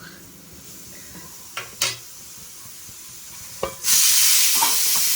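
A few sharp kitchen clicks over a low steady background. Then, about four seconds in, a loud, even hiss of steam starts suddenly from a rice pressure cooker venting on the stove.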